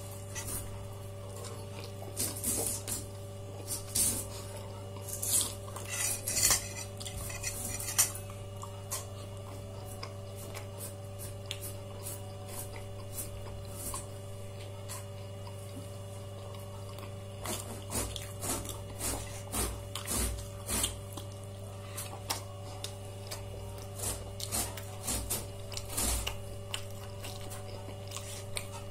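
Dishes and cutlery clinking and scraping in scattered clusters, busiest in the first several seconds and again in the last ten, over a steady low hum.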